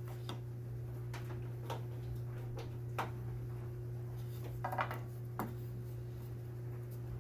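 Light, scattered clicks and knocks of small wooden workpieces being handled, over a steady low hum from the shop.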